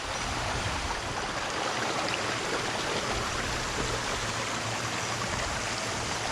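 Water of a waterfall stream rushing steadily, a continuous even hiss.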